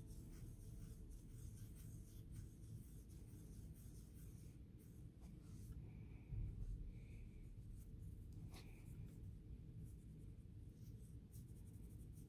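Faint scratchy rubbing of a cotton swab scrubbing a small metal model-locomotive wheel and axle clean, with a few light ticks as the parts are handled.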